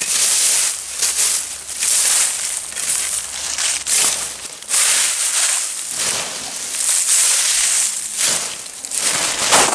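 A leaf rake dragged through dry fallen leaves and dead twigs in repeated strokes, roughly one a second, the leaves rustling and crackling. Near the end, dry leaves are gathered up by a gloved hand.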